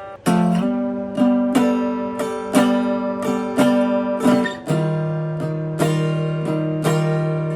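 Solo guitar improvising: chords struck in a steady, repeating pattern about two or three times a second, each left to ring on, with a brief break right at the start.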